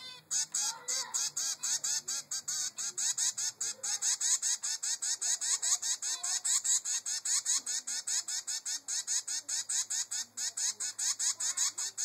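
Zebra finch chick giving food-begging calls: a rapid, unbroken string of short, high, raspy calls, about five a second, as it demands to be fed by its mother.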